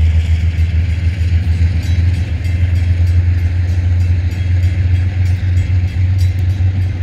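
Slow freight train's gondola cars rolling past at a grade crossing: a loud, steady low rumble with wheels running on the rails.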